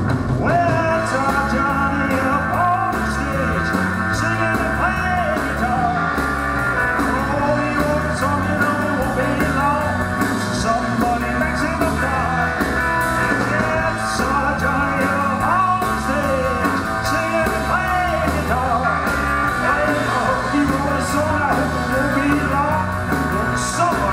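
Live rock and roll band playing: electric guitars over a drum kit, with a steady beat.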